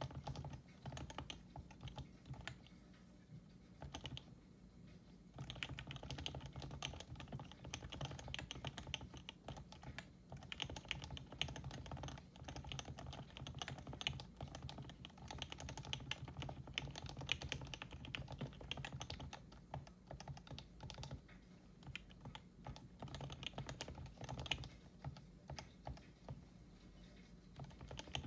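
Continuous typing on a Happy Hacking Keyboard Professional 2, a Topre electrostatic capacitive (contactless) keyboard, with its switches lubricated with Krytox 105 oil. The keystrokes thin out briefly a few seconds in, then run on densely.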